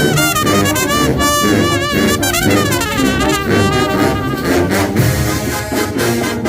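Mexican banda brass band playing loudly, with tubas on the low line under trumpets and trombones carrying a melody with wavering, bending pitch. Sharp drum or cymbal hits come in over the second half.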